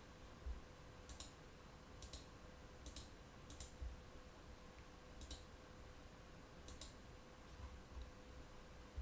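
Faint, scattered clicks of a computer mouse, seven or so at irregular gaps of one to two seconds, over a faint steady hum.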